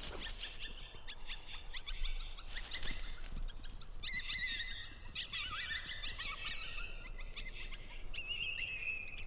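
High-pitched canine yips and whines: quick short yips at first, then longer wavering whining calls from about halfway through.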